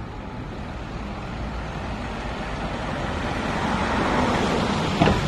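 Road traffic: a motor vehicle's engine and tyre noise growing louder as it draws near, with a couple of sharp knocks right at the end.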